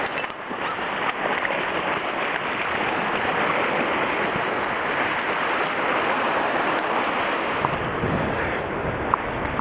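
Sea surf washing against shoreline rocks in a steady rush, with wind buffeting the microphone.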